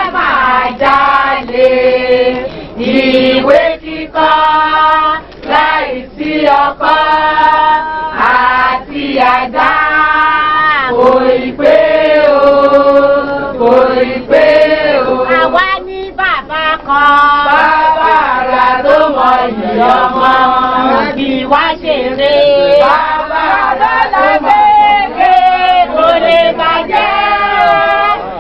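A group of voices singing together in held, gliding phrases.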